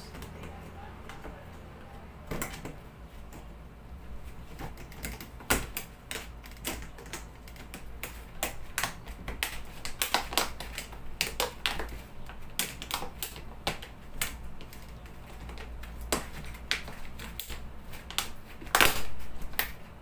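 Irregular sharp clicks and taps from hand work on electrical wiring, some in quick runs and loudest near the end, over a steady low hum.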